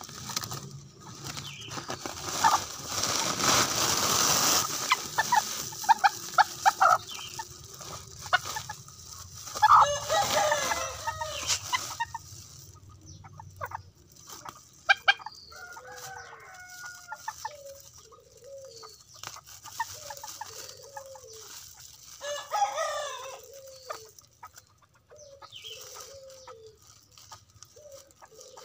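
Ayam kate bantam chickens in woven plastic sacks: a rooster crows twice and the birds give a run of low clucks about once a second through the second half. The sack rustles loudly as it is handled a few seconds in.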